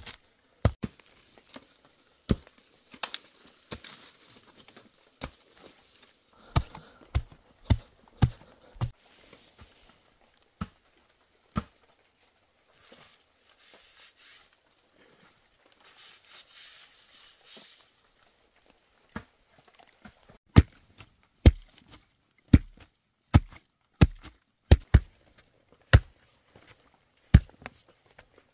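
A blade chopping with sharp separate strikes, scattered at first and then coming about once a second from about two-thirds of the way in. Spells of tearing and rustling, like husk or fibre being pulled, sit between the strikes.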